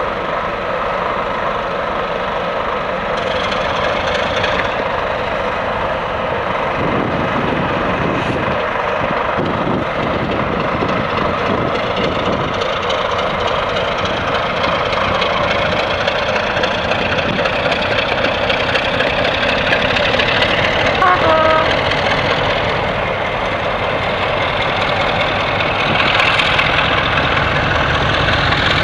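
Diesel locomotive engines running under power as a double-headed passenger train passes, a steady heavy drone that grows a little louder near the end.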